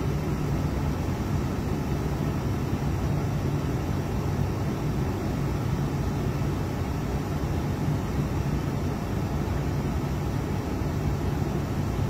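A vehicle's engine running with a steady low hum, heard from inside the cab along with even cabin noise.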